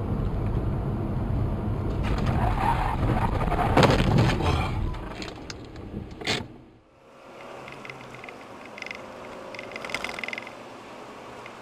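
Dashcam car's road and engine noise, building into a loud crash with knocks and scraping about four seconds in. A sharp click follows, then the sound cuts to quieter, steady in-car road noise.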